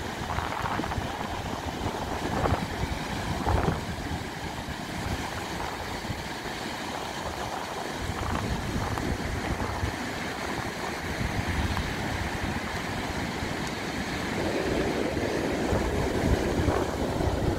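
Rough surf breaking and washing up a sandy beach, with gusty wind buffeting the phone's microphone in a low flutter. The wash of the waves grows louder near the end.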